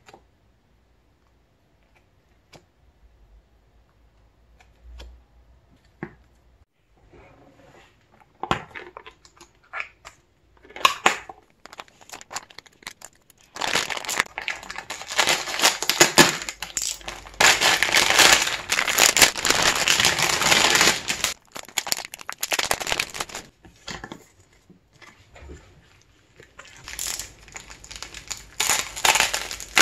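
A few faint clicks, then thin plastic packaging crinkling and tearing as a grey poly mailer bag is slit open with a utility knife and handled, dense and loud through the middle. Near the end, bubble wrap crinkles as it is unwrapped.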